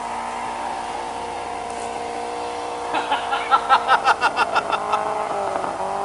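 Rally car engine running at steady revs, then a rapid stuttering pulse of about six beats a second for some two seconds from about three seconds in.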